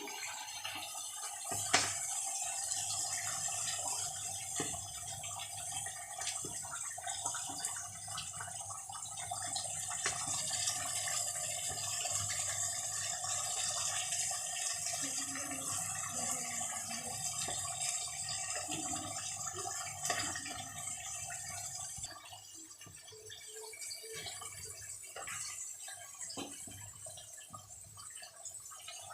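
Chicken and masala sizzling and bubbling in a covered karahi on the stove: a steady hiss with scattered small pops, dropping in level about 22 seconds in.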